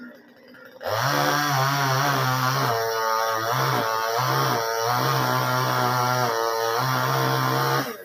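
Top-handle two-stroke chainsaw opening up to full revs about a second in and running hard while cutting coconut palm wood, its pitch dipping several times around the middle, then falling back as the throttle is released near the end.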